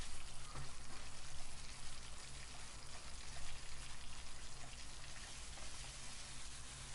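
Shrimp heads and shells and a flounder rack sizzling and crackling in hot oil in a stainless steel sauté pan: a steady frying hiss, with a low steady hum underneath.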